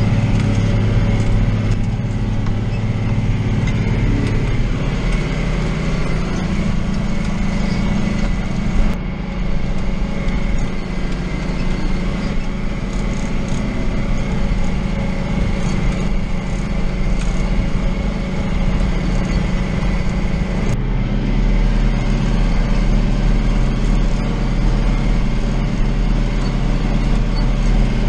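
John Deere 2940 tractor's diesel engine running steadily while pulling a hay rake. Its pitch steps down about four seconds in and changes again twice later on.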